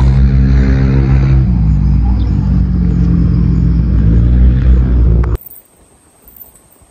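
A motor engine running loud and steady, its pitch shifting a few times, then cutting off suddenly about five seconds in.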